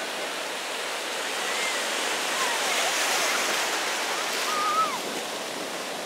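Atlantic ocean surf washing through the shallows, a steady rush of foaming water that swells about halfway through as a wave breaks and runs in.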